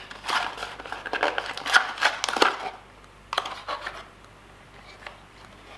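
Cardboard and plastic phone packaging being handled, rustling and clicking, while an item stuck in the box is worked at. The rustling and clicks are dense at first, then thin out to a few separate clicks.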